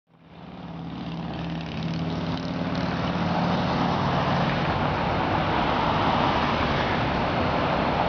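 Steady outdoor background noise fading in from silence over the first couple of seconds: an even rushing sound with a low hum beneath it.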